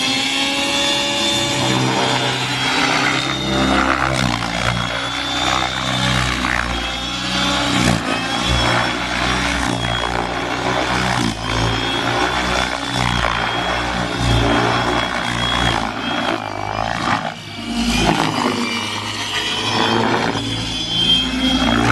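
Electric Align T-Rex 600E radio-controlled helicopter flying aerobatics: the rotor and motor run with a steady high whine, the pitch sweeping up and down as it manoeuvres, most clearly near the end.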